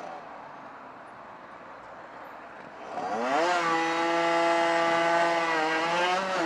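Rieju RS2 Matrix Pro 50cc two-stroke motorcycle engine under way. It runs low and quiet for about three seconds, then the revs climb quickly, hold high and steady, and dip briefly near the end.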